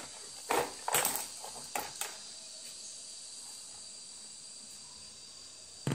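A few sharp clicks in the first two seconds from an analog multimeter being handled, its selector knob set and its probes touched to the speaker wire ends for a continuity test. After that there is only a faint steady hiss with a thin high whine.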